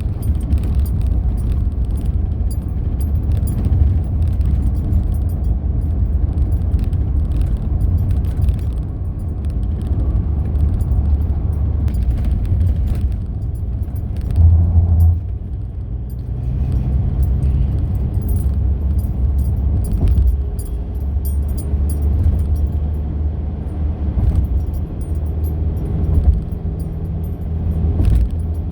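Car driving on a highway, heard from inside the cabin: a steady low rumble of road and engine noise with small scattered rattles, and a brief louder low thump about halfway through.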